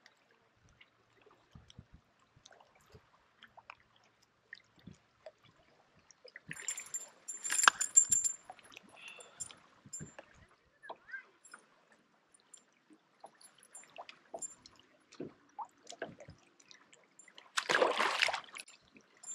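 A hooked fish splashing at the surface about seven seconds in as it is reeled to the boat, the loudest moment, with scattered small clicks and knocks of reel and deck handling; near the end a second splash as the fish is tossed back into the lake.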